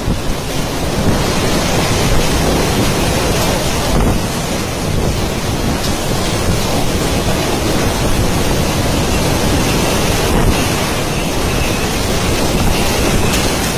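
Typhoon wind blowing hard and buffeting the microphone, a loud, steady rush with rain mixed in.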